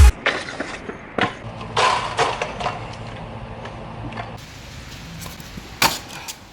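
Stunt scooter riding on pavement: a steady rolling hiss broken by half a dozen sharp clacks of the deck and wheels landing and striking the ground.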